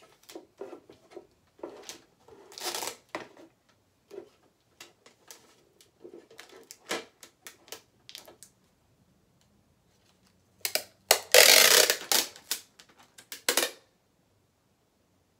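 Packing tape being pulled off its roll and stuck across the open top of a bucket, crackling and clicking as it is handled and pressed down, with a short rasp of unrolling tape about three seconds in and a longer, louder rasp from about eleven seconds in.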